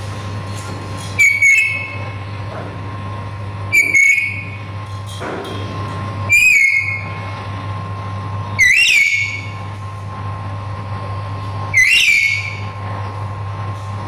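Pet lory giving five loud, short whistled calls, each a sharp upswept then falling note, about every two and a half seconds, over a steady low hum.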